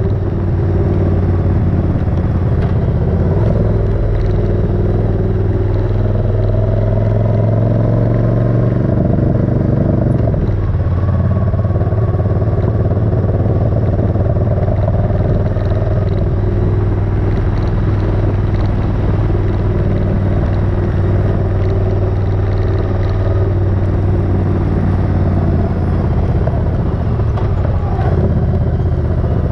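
Suzuki Intruder 1400's V-twin engine running under way. Its pitch climbs over a few seconds, breaks off about ten seconds in, then holds steady.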